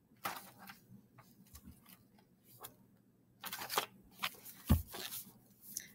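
Rustling and light clicks of things being handled on a desk, with one dull thump a little under five seconds in.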